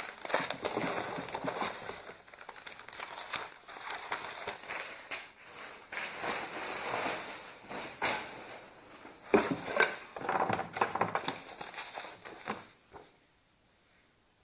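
Sheets of paper and cardboard rustling, sliding and crinkling as they are handled in a wooden drawer, with two sharp knocks about two-thirds of the way through.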